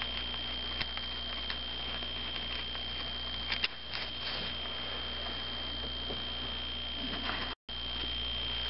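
Faint, scattered small metallic clicks and ticks of a loosened 10 mm bolt being worked out by hand, over a steady hum with a thin high whine. The sound drops out for a moment near the end.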